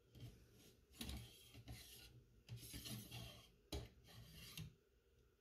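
Faint scraping and rubbing of the jointed M10 cleaning rod being pushed down the bore of an M1 Garand rifle from the muzzle, in a few uneven strokes, with one short click about three-quarters of the way through.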